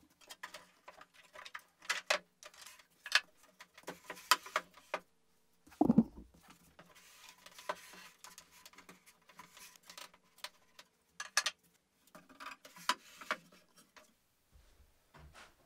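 Scattered light clicks and wooden knocks from plywood parts of a fold-down desk mechanism being handled and moved, with one heavier wooden thump about six seconds in.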